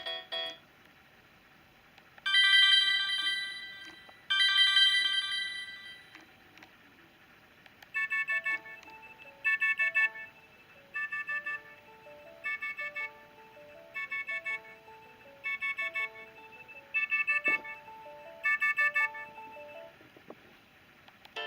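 LG GB125 phone ringtone playing through a Sony Ericsson T610's small speaker: two long chiming notes, then a short beeping phrase over a simple lower melody that repeats about every one and a half seconds until shortly before the end.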